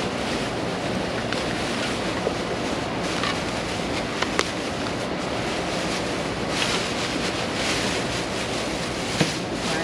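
Steady hiss of storm rain with wind buffeting the microphone, broken by a few brief knocks and clicks.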